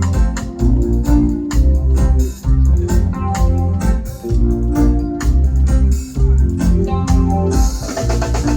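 A live band playing an instrumental passage: organ-toned keyboard chords over a heavy bass line and drums.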